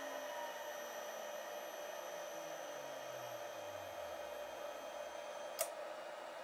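VEVOR 3 kW milling spindle winding down after switch-off, its faint tone falling steadily in pitch over about five seconds as the frequency converter brakes it to a standstill, under a steady fan-like hiss. A single sharp click about five and a half seconds in: the control unit's relay dropping out once the spindle has stopped.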